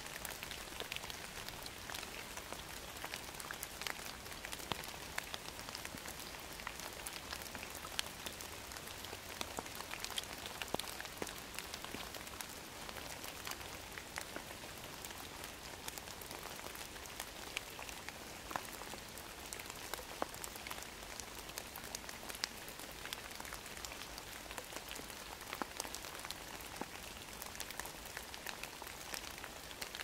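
Rain falling on woodland leaves: a steady hiss of rainfall with many separate drops heard as short, sharp ticks.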